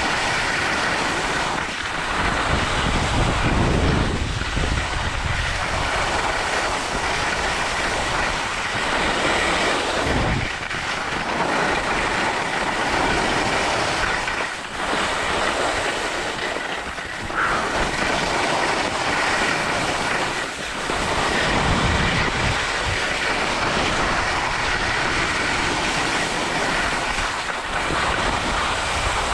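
Skis running and scraping over packed, groomed snow on a downhill run: a steady rushing hiss. Wind buffets the camera's microphone in deep rumbling gusts, strongest a few seconds in and again about twenty seconds in.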